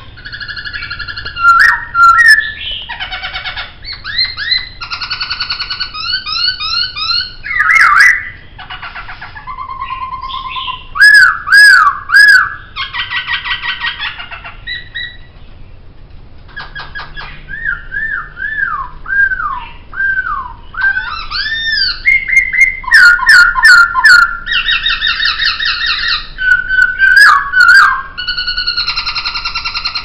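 Poksay (laughingthrush) singing a long, varied, loud song: clear whistles, rapid repeated trilled phrases, swooping slurred notes and harsh squawky chatter.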